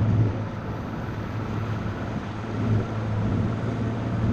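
Bass boat's outboard motor running steadily with a low, even hum.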